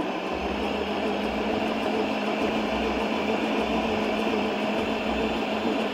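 Electric stand mixer running at a steady speed, kneading a ball of dough in its steel bowl.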